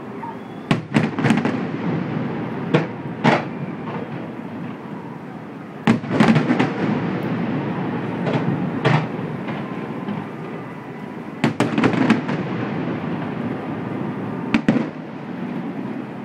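Fireworks display: aerial shells bursting in repeated sharp bangs, several in quick clusters, over a continuous low rumble of further bursts.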